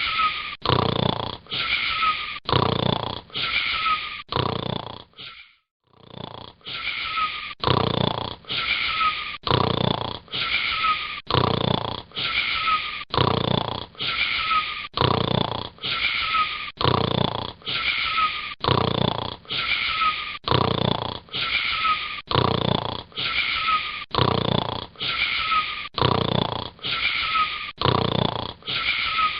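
Wheezy snoring that repeats in a fast, even rhythm, each snore almost identical to the last, with a short break about five seconds in.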